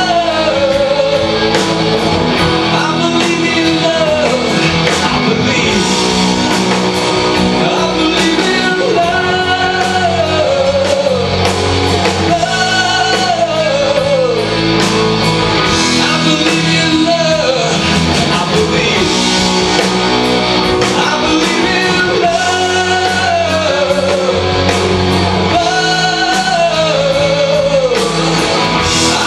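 A rock band playing loud and steady, with drums, guitars and a lead voice singing long phrases that each rise and fall.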